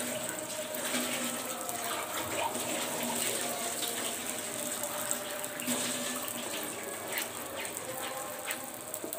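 Wooden spatula stirring and scraping a thin, wet mix of chhana, jaggery and condensed milk around a pan on the stove: a steady wet, splashy churning with small clicks from the spatula.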